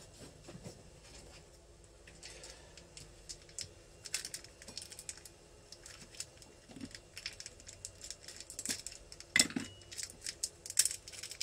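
Small metal engine parts, the piston's gudgeon pin among them, clicking and clinking as they are handled in the fingers. The clicks grow busier in the second half, with two sharper clinks near the end, the first ringing briefly.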